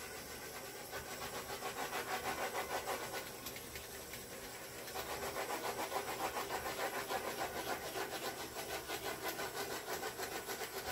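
A small handheld heat tool blowing over a wet acrylic pour painting: a steady hiss with a fast flutter, used to heat the paint surface.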